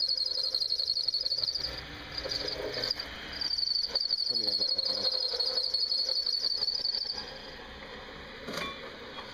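Cricket chirring, a high-pitched pulsing trill in long bouts with short pauses, stopping about seven seconds in.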